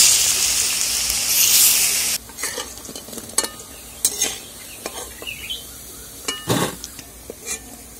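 Gram-flour and fig fritters sizzling in hot oil in a steel wok; about two seconds in the sizzle cuts off, and a metal spatula scrapes and clinks against the wok several times as the fried fritters are lifted out.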